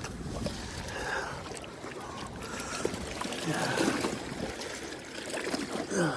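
Lake water splashing and sloshing at the shoreline, a steady wash with scattered small splashes.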